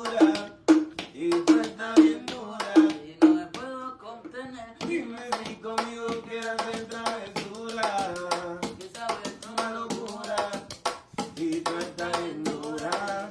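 A cappella reggaeton singing, a melodic vocal line without clear words, over a steady beat of sharp taps. The taps are dense in the first few seconds, thin out while the voice holds longer notes, and come back near the end.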